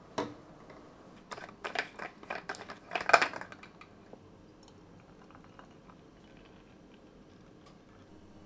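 Clear plastic pump bottle being handled on a stone countertop: a sharp knock, then a run of clicks and knocks over about two seconds as the pump head is taken off and the bottle is set down, the loudest knock about three seconds in.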